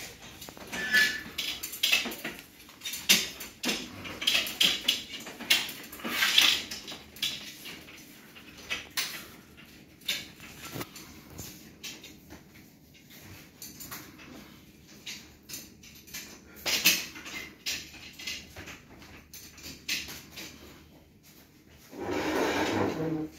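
Metal pop-up display frame being unfolded and stood up: its tubes and hinges rattle, click and clank, with plastic wrapping crinkling. The clatter is dense at first and thins out, with a louder rasp about a second long near the end.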